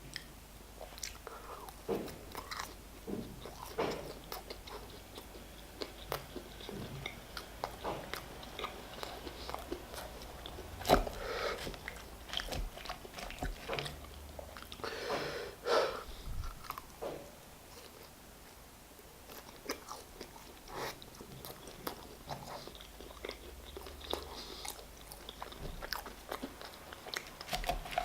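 Close-up chewing and biting into food, with wet mouth smacks and crunches repeating throughout and one louder knock about eleven seconds in.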